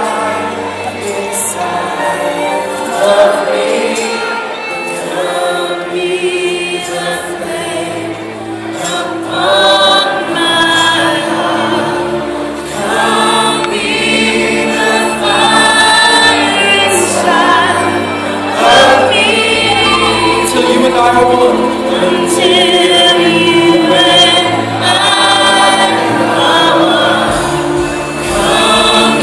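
Live gospel worship music: a lead singer and a group of backing singers singing together into microphones, over steady low sustained accompaniment from the band.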